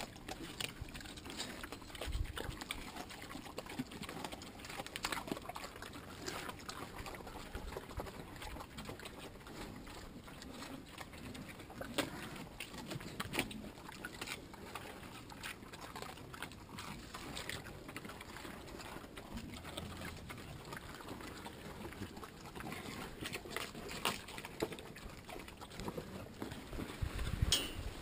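Hungarian Mangalica pigs feeding and rooting in a dirt pen: a faint, irregular run of crunching, chewing and snuffling on food scraps and soil.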